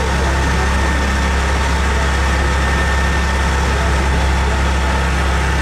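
Chance Sunliner parking-lot tram running along the road, its tractor engine giving a steady low drone with a faint steady whine above it, heard from aboard a passenger car.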